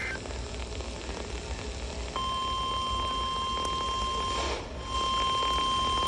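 Radio receiver playing an emergency-alert Required Weekly Test through static hiss. About two seconds in, a steady single-pitch alert tone near 1 kHz begins. Around the middle it drops out briefly in a burst of static, then resumes: the reception is poor from interference.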